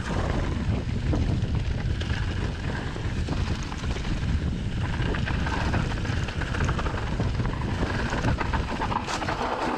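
Wind rushing over a GoPro's microphone and mountain-bike tyres rumbling over a dry dirt trail on a fast descent, with the bike clattering and rattling over bumps throughout.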